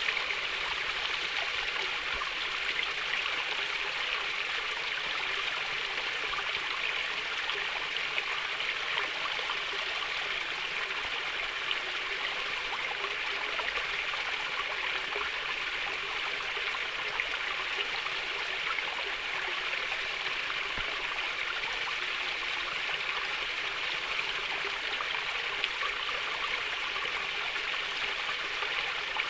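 Shallow water flowing and gurgling steadily, a calm stream or trickle with an even rushing hiss.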